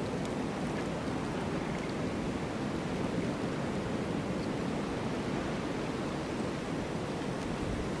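Strong blizzard wind blowing in a steady, even rush.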